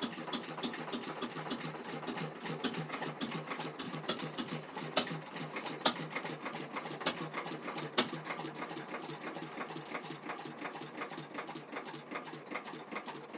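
A 1921/22 Lister H lighting-plant stationary engine (the lighting-set version, rated at 500 RPM) running, with a fast, steady, rhythmic mechanical clatter.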